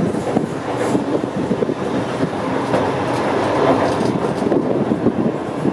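Volk's Electric Railway car running along its narrow-gauge track, heard from aboard the open-sided car: a steady running noise of wheels on rails with irregular clattering throughout.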